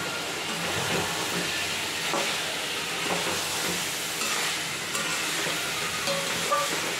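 Soya chunks and fried potato pieces sizzling in oil and spice paste in a kadai while being stirred, a steady frying hiss with now and then a light knock or scrape. This is the kosha stage, the spices frying until the oil separates.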